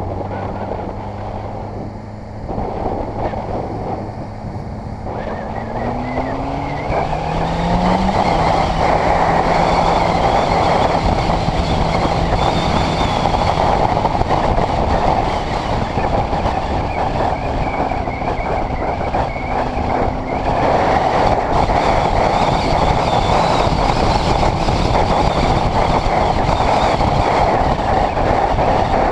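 Honda CBR600RR's inline-four engine pulling along at low revs, rising in pitch as it accelerates about six seconds in, then dropping back with an upshift. From then on a steady rush of wind on the camera's microphone grows louder with speed and mostly covers the engine.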